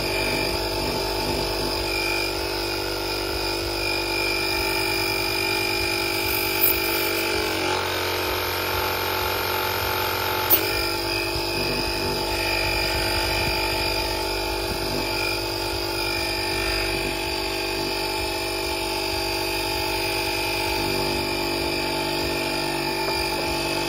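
Portable electric air compressor (a VacLife inflator) running steadily, pumping air through a needle into a slam ball that had gone soft. Its hum holds one pitch, with a short change in tone about eight seconds in that ends in a sharp knock a couple of seconds later.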